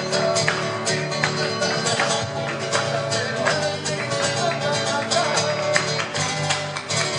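Live flamenco music: a Spanish acoustic guitar plays, with sharp rhythmic hand claps (palmas).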